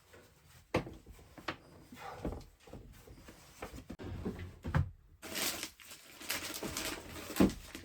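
Scattered knocks and thuds with a few seconds of rustling, as things are handled and set down in a small room; the loudest thud comes near the end.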